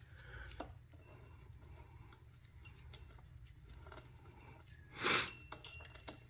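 Faint clicks and handling noise as a gloved hand works a wrench on the drain bolt of a Honda GCV200 carburetor's float bowl, with one short hissing burst about five seconds in, the loudest sound.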